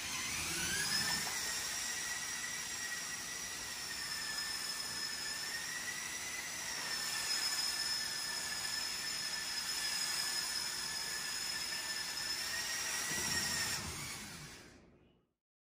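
LEGO Technic Ferrari model driven by two LEGO Powered Up L motors through its gear train on a BuWizz 3.0 Pro at full power: a high-pitched electric whine. It rises quickly as the motors spin up, holds fairly steady with small dips in pitch, then fades away near the end.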